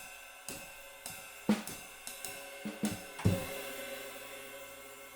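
Light cymbal fitted with two rivets, played with a stick in a steady jazz ride pattern, with a few drum hits underneath. A final accented stroke a little over three seconds in rings out with a long decaying shimmer and rivet sizzle.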